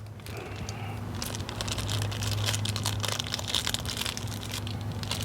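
Crinkling rustle and small clicks of packaging being handled as a plastic wire nut is picked out, over a steady low hum.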